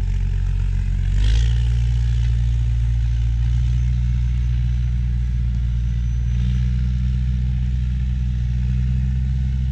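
Big diesel engine of a Big Bud four-wheel-drive tractor running steadily under load as it pulls a large moldboard plow, a deep drone with a short swell about a second in.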